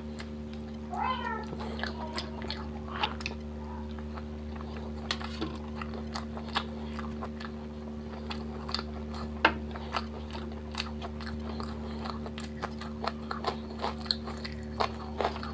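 Close-miked chewing of fish curry and paratha, with many short wet mouth clicks and smacks. About a second in there is a brief wavering voice-like sound, over a steady low hum.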